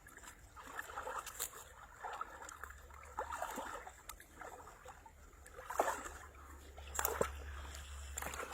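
Light, irregular splashing and sloshing of water, with scattered sharp clicks and knocks.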